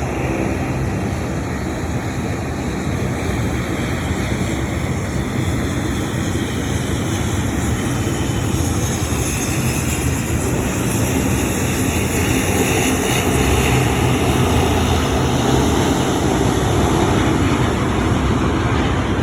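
Jet airliner's engines, a steady rush of noise that swells a little louder in the second half.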